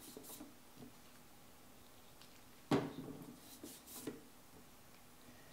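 Quiet handling at an Edge Pro Apex knife sharpener while water is worked onto its sharpening stone: one sharp knock a little under three seconds in, then a few lighter taps.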